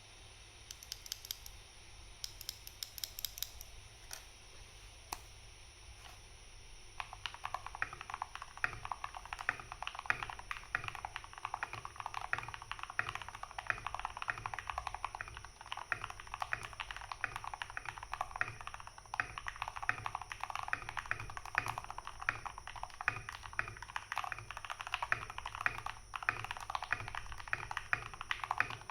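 Typing on an RK61 mechanical keyboard with lubed Gateron Milky Yellow Pro linear switches and PBT keycaps. A few scattered key presses at first, then fast continuous typing from about seven seconds in.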